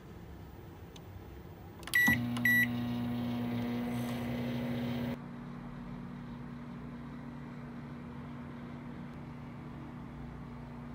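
Microwave oven keypad beeping twice, then the oven starting up with a steady low hum that stops suddenly about three seconds later.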